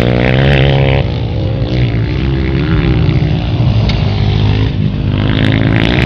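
Dirt bike engine, a Honda CRF230's four-stroke single, being ridden hard. Its pitch rises and falls several times as the throttle is opened and closed through the gears.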